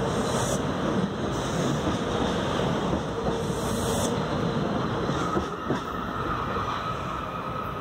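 Metro-North Harlem Line commuter train passing close by, its wheels rumbling and clattering on the rails. The noise eases a little after the last car goes by about five seconds in, leaving a faint steady high whine.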